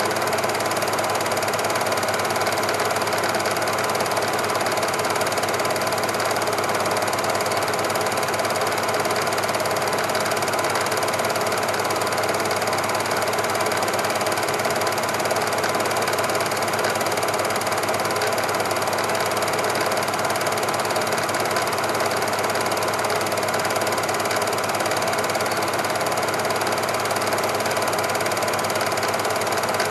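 Super 8 cine projector running: a steady mechanical whirr with a fast, even clatter of the film being pulled through the gate.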